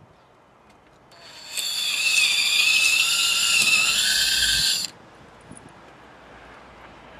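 Cordless drill running for about four seconds as it works into the boat's hull-to-deck join; its whine steps up in pitch just before it stops.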